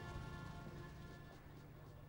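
Faint background music with sustained notes, fading out.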